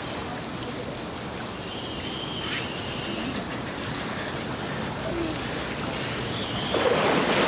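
Steady hiss of falling or running water, growing louder near the end, with faint distant voices and two short high chirps.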